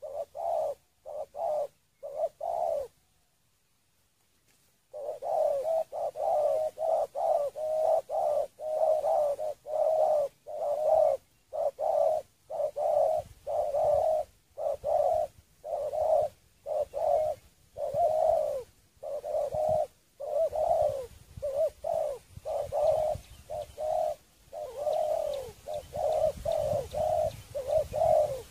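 Spotted doves (terkukur) cooing: a long run of short, low, arched coos, about two a second, broken by a pause of about two seconds near the start.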